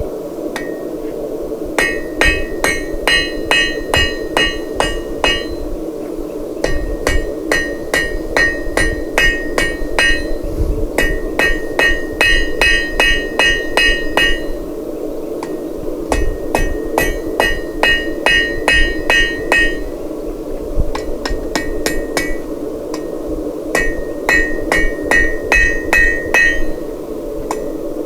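Cross peen hammer striking red-hot square steel bar on an anvil, in runs of quick ringing blows about three a second with short pauses between runs.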